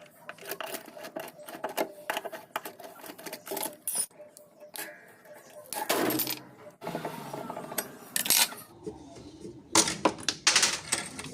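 Hands working on a washing machine under repair: a run of clicks, light knocks and clatter of parts and tools being handled, with louder bursts of handling noise about six seconds in and again around ten seconds.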